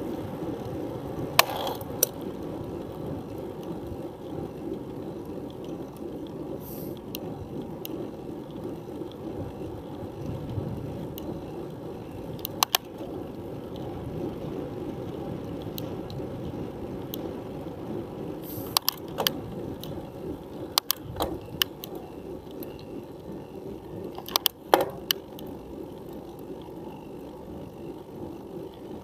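Bicycle climbing a steep paved road, heard from a camera strapped to the handlebars: a steady low rumble of tyres and drivetrain, with sharp clicks and rattles every few seconds, several in quick pairs.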